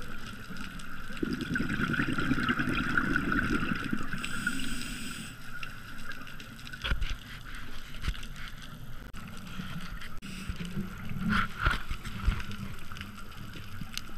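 Scuba diver breathing through a regulator underwater: a hissing inhale about four seconds in, between stretches of low bubbling from exhaled air, with a few small clicks later on.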